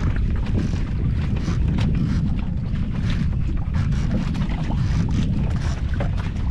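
Wind buffeting the microphone on a small boat at sea: a steady low rumble with faint short clicks throughout.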